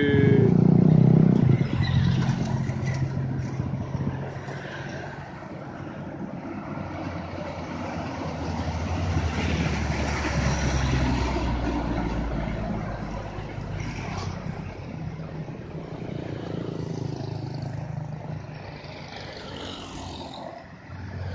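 Heavy three-axle diesel cargo truck pulling up a hill road under load as it passes close by. Its engine grows loudest about halfway through and then fades away, with other road traffic mixed in.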